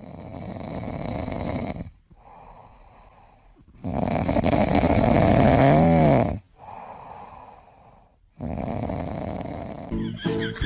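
Sleeping kitten snoring: three long, loud snores about two seconds apart with quieter breaths between, the middle one ending in a wavering whistle. Music starts near the end.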